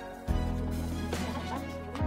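Background music of sustained notes; a deep bass note comes in about a third of a second in.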